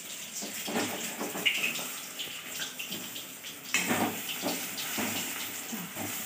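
Battered pakoras deep-frying in hot oil in a kadai, a steady crackling sizzle. A perforated metal slotted spoon scrapes and knocks against the pan as they are turned, most sharply a little past halfway.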